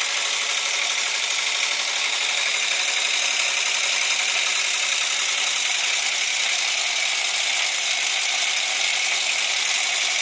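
PM Research No. 7 model steam engine running steadily on steam from a gas-fired copper boiler, under a steady high hiss.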